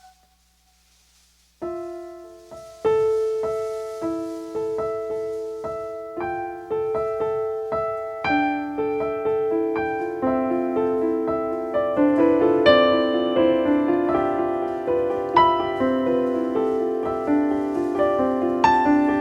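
Piano music: after a near-silent moment, single struck notes begin about a second and a half in and form a repeating figure that grows fuller as more notes are layered in.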